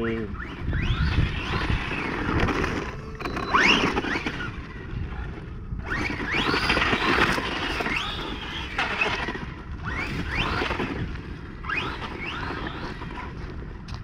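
Electric motor of a radio-controlled truck running on a 3S battery, its whine rising in pitch again and again as the throttle is punched, with its tyres spinning on icy mud. A constant low rumble lies beneath.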